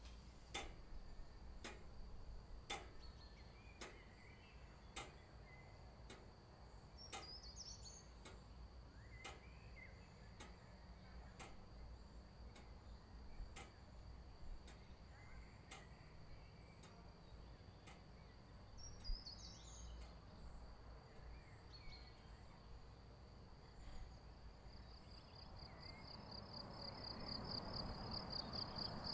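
Near silence with faint ticking about once a second and a couple of brief high bird chirps. Near the end, insects chirping in rapid even pulses fade up over a soft outdoor hiss.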